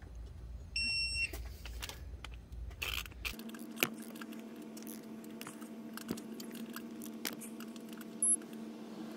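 Digital torque wrench tightening ARP head stud nuts on an LLY Duramax 6.6 cylinder head: scattered metal clicks and clinks as the wrench is pulled. A short beep about a second in is the wrench signalling that it has reached the set torque. A steady hum starts about three seconds in.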